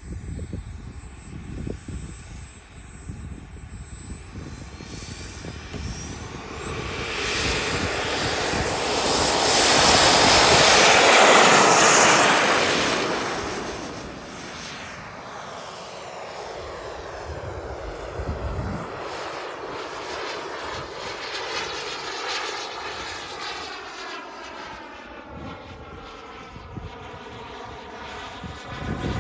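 Single-turbine model jet (JetsMunt 250 turbine in an RC F-22 Raptor) spooling up with a rising high whine, then rushing past on its takeoff run, loudest about ten to twelve seconds in, and fading as it climbs away.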